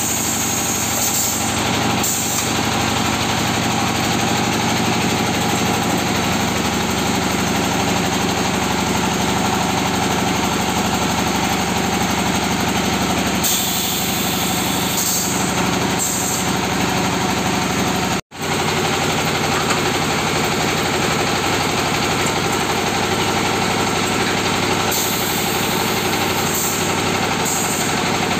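Pressed red-brick making machine running steadily, with short hissing bursts now and then. The sound drops out for an instant about eighteen seconds in.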